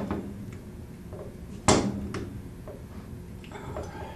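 Metal clicks and clunks of a monkey wrench being set on and worked against a steel thread protector, with one loud knock a little before halfway, as the partly ground-through spot weld holding the protector is broken loose.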